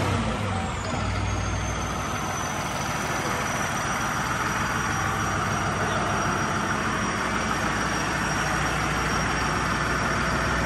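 A New Holland 5620 CRDi tractor's common-rail diesel engine settling to a steady idle in the first second or so, with a faint high whine that slowly falls in pitch.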